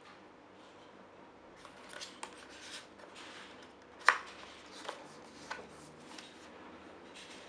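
Paper handling on a hardcover photobook: crinkling as a CD is slid into its paper sleeve, one sharp tap about four seconds in followed by a couple of lighter clicks, then a stiff page being turned.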